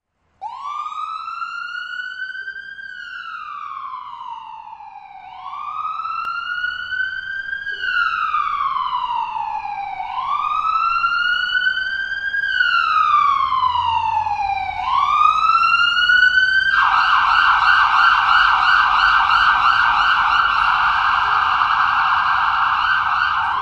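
A siren wailing in slow sweeps that rise and fall, about one every five seconds, growing louder, then switching to a fast yelp about three-quarters of the way through before stopping abruptly.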